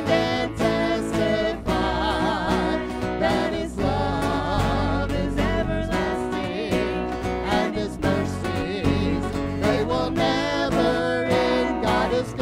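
A live worship band playing a song: acoustic and electric guitars with singers over them, holding wavering sung notes.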